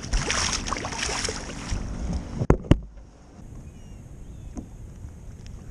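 Water splashing as a striped bass is held in the water beside a kayak and released, followed by two sharp knocks in quick succession about two and a half seconds in.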